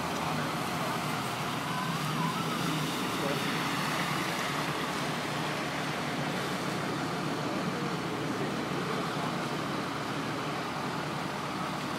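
Steady street noise of vehicle engines and traffic, with faint voices of people talking.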